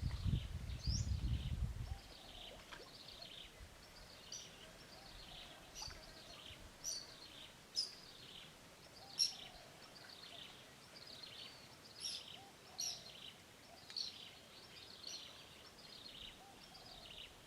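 Birds calling: a steady run of short, high, falling chirps, a few a second, some louder than others. A low rumble sounds through the first two seconds.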